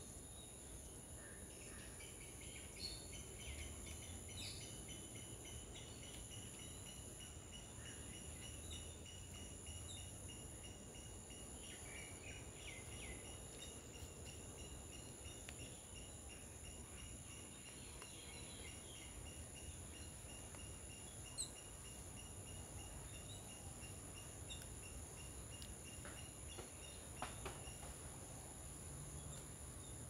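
Faint outdoor garden ambience of insects: a steady high-pitched insect trill, with a fast pulsing chirp over it that stops near the end, and a few sharp taps in the second half.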